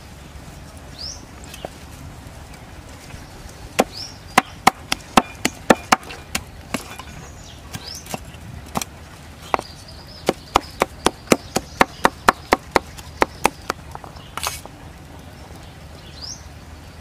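Cleaver chopping red chillies on a wooden chopping board, in two runs of quick knocks about three a second, with one louder knock after the second run. A bird gives short rising chirps now and then.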